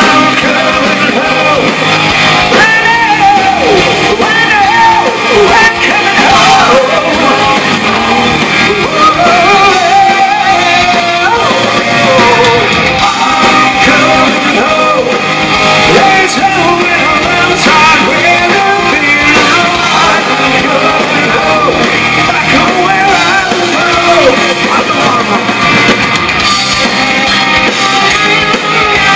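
Live hard rock band playing loud: distorted electric guitars with bending lead lines over bass and drums, and a male lead vocal.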